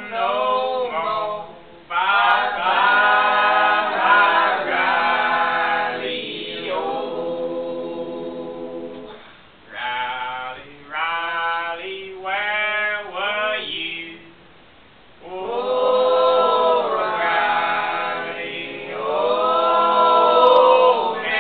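Unaccompanied singing in long held phrases with short breaks between them, and a pause about two-thirds of the way through before the singing resumes.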